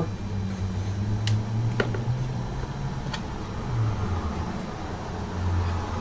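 A steady low hum in the background, with a few light clicks in the first three seconds as an iMac is handled and tilted over on its stand.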